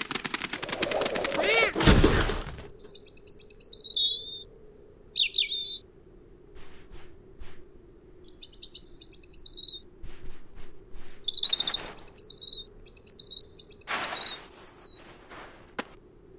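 A rushing, noisy sound ending in a loud thump about two seconds in, then a small cartoon bird chirping in quick, high, trilling phrases, several times over, with short swishes between them.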